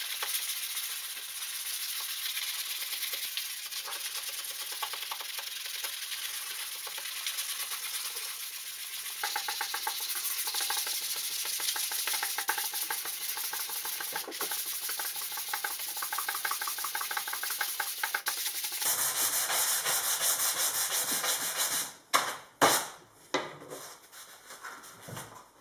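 Sandpaper on a hand-held sanding block rubbing rapidly back and forth over the wooden blade and shaft of a canoe paddle in the final sand-down, the strokes sped up to three times normal speed. Near the end there are a few sharp knocks, louder than the sanding.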